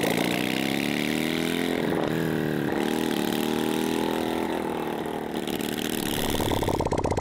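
Fuel-injected V-twin motorcycle engine running as the bike is ridden at low speed, its pitch rising and falling with the throttle. The low rumble grows louder near the end as the bike comes closer.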